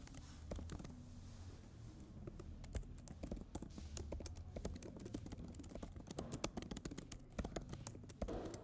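Typing on a computer keyboard: a quick, uneven run of key clicks with short pauses between words.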